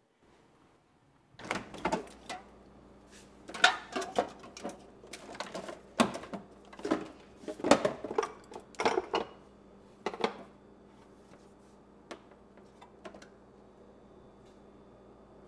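Someone rummaging in an open refrigerator: a run of irregular clinks, knocks and rattles as jars and containers are moved about, thinning to a few single clicks near the end.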